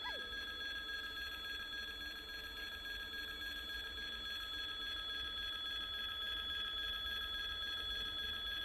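Distant 2TE116 twin-section diesel locomotive running with a freight train: a steady low rumble with a steady high whine over it, slowly growing a little louder as it approaches.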